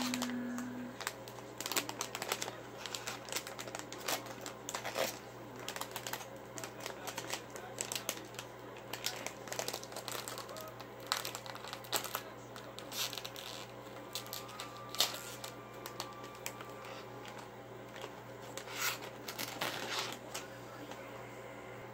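A plastic LEGO minifigure blind bag crinkling irregularly as fingers squeeze and handle it, and it is torn open near the end.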